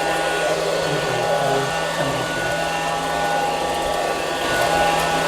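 Robotic vacuum cleaner running: a steady motor whine over an even hiss of air.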